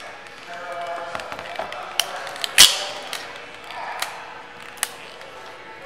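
Adhesive tape being pulled off a roll and torn, handled against a large inflated balloon: a run of sharp crackles and snaps. The loudest snap comes about two and a half seconds in.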